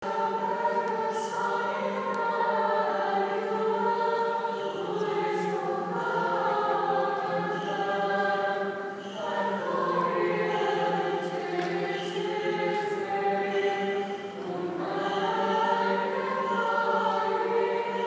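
Church choir singing a liturgical hymn in long held notes over a steady low drone note, with the melody moving every few seconds.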